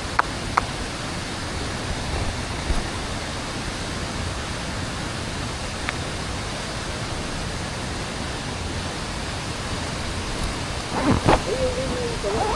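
Waterfall rushing steadily into its pool, a constant even roar with no change. A few light clicks sound right at the start, and a brief voice is heard near the end.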